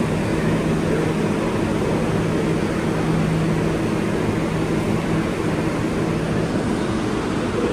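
Inside an R142A subway car: a steady rumble with an even low hum. It is the car's own running and equipment noise.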